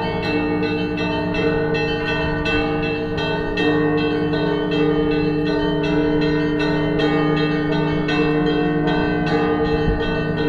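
Russian Orthodox church bells ringing a full peal: small bells struck rapidly, several strikes a second, over the steady hum of the larger bells.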